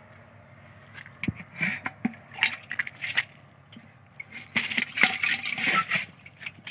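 Plastic bag crinkling and rustling as a hand digs into it for bait, in short irregular crackles that grow busiest about two-thirds of the way through.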